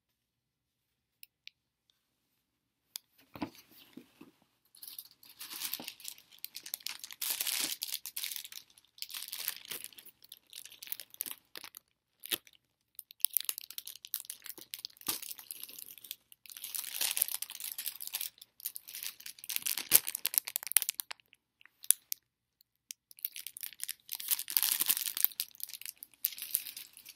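Scratchy rustling and crinkling of paper signs handled and rubbed close to the microphone, in several stretches of a few seconds each, starting about three seconds in.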